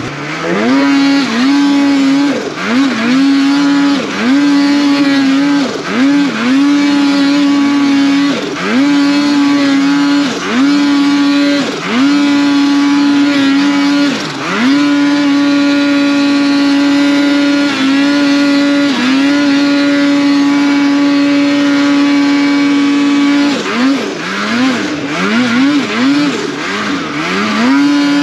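Ski-Doo snowmobile engine revving hard under load on a steep climb. The throttle is let off and caught again in quick dips, every second or two at first, then held steady for several seconds in the middle, then blipped again near the end.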